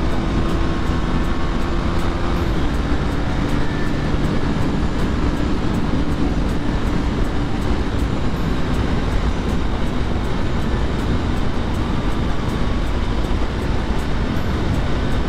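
Heavy wind noise on the camera microphone from riding a KTM Duke motorcycle at highway speed, with the bike's engine running steadily underneath.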